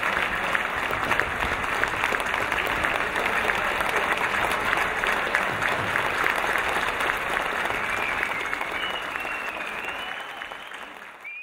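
Large audience applauding, a dense steady clatter of many hands clapping that fades away near the end.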